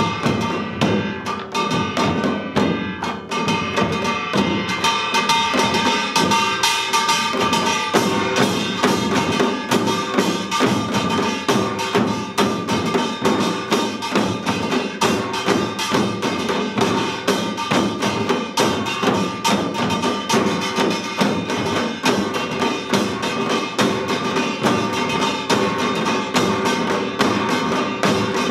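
Korean samul nori ensemble playing Yeongnam-style rhythms: many janggu hourglass drums and buk barrel drums struck together in a fast, unbroken beat, with brass gongs ringing over the drumming.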